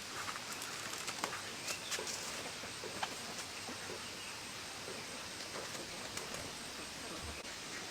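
Outdoor ambience at a duck flock: a steady hiss with scattered light rustles and short clicks, the clicks most frequent in the first three seconds.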